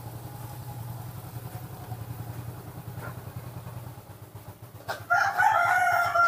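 A steady low hum, then about five seconds in a loud, held, pitched animal call that lasts about a second and a half and drops slightly in pitch at the end.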